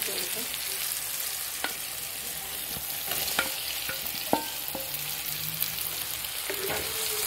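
Chopped onion and tomato sizzling steadily in hot oil in a non-stick pan, stirred with a wooden spatula. A few sharp knocks sound over the sizzle, the loudest about four seconds in, as boiled potato pieces are tipped in from a steel bowl.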